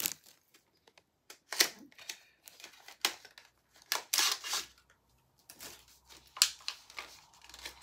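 A small cosmetics package, a glitter liquid eyeshadow trio, being forced open by hand: short bursts of tearing, crinkling and clicking packaging, about eight of them with quiet gaps between, one longer rip about four seconds in.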